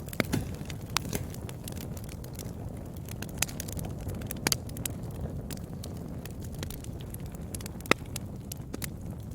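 Wood fire burning with a steady low rumble and irregular sharp crackles and pops, the loudest pop about eight seconds in.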